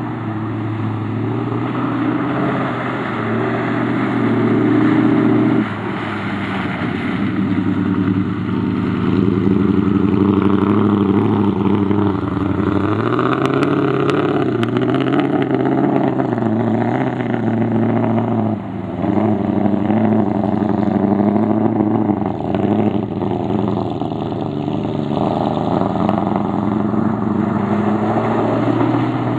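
Ford 390 FE big-block V8 in a 1973 F100 4x4 revving hard under load, its pitch climbing and falling again and again as the throttle is worked through mud, with brief drops in revs.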